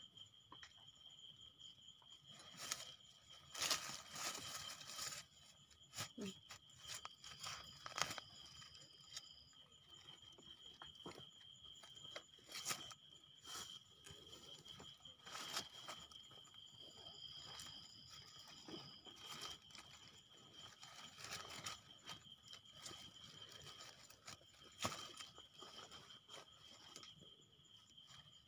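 Hands scraping soil and plucking termite mushrooms from the ground: faint, irregular crunches and rustles, a few of them louder. Under them runs a steady high trill of night insects.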